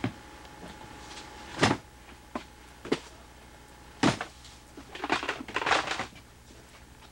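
Cardboard boxes being handled and set down on wooden attic floorboards: several sharp thuds, the loudest about four seconds in, then about a second of scraping and rustling.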